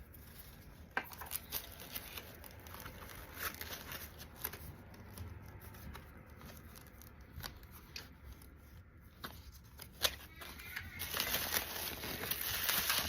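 Unboxing a package by hand: scattered light clicks and taps as small items are picked up and set down, then packaging crinkling and rustling from about two seconds before the end.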